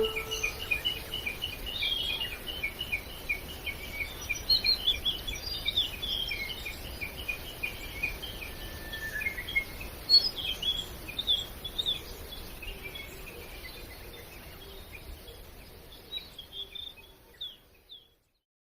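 Birds chirping over a rhythmic insect trill, a natural outdoor ambience that fades out and stops near the end.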